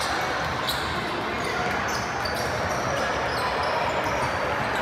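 Basketball game on a hardwood court: a ball bouncing as it is dribbled, and many short high sneaker squeaks, over a steady murmur of voices in the hall.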